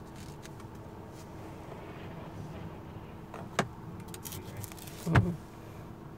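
Steady low hum inside a car's cabin, with a sharp knock about three and a half seconds in and a heavier thud about five seconds in, the loudest sound.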